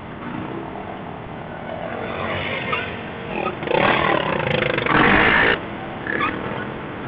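Off-road vehicle engines running at low speed, with a louder rev from about three and a half seconds in that cuts off suddenly two seconds later.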